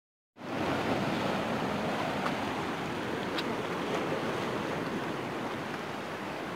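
Sea surf breaking and washing over shoreline rocks: a steady rush of water that cuts in abruptly just after the start, with a couple of faint clicks.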